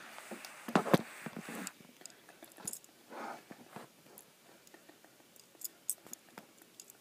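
Handling noise from a tablet being shifted and propped into position: a couple of sharp knocks about a second in, a short rustle around three seconds, then faint scattered clicks.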